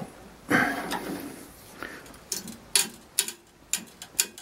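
Boiler tube cutter being turned by a socket bar inside a steel fire tube of a traction engine boiler, creaking as its blade cuts into the tube: one longer scraping creak near the start, then a string of sharp clicks about two a second.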